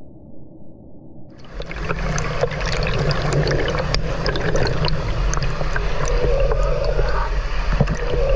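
Shallow stream running, with water splashing as people move about in it and a low rumble underneath. The sound is faint and muffled at first, then opens up suddenly about a second and a half in, full of short splashes.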